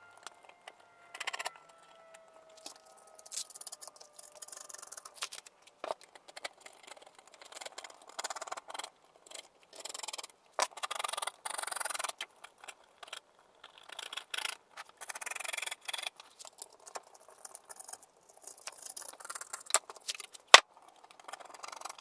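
Intermittent scraping, rustling and crinkling as clear grip tape on a skateboard deck is trimmed with an X-Acto knife and the offcut is pulled away, with a few sharp clicks, the loudest near the end.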